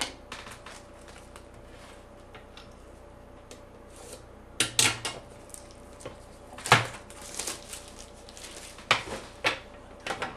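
Trading cards and their packaging being handled on a table: scattered clicks, taps and short rustles, busiest about halfway through and again near the end.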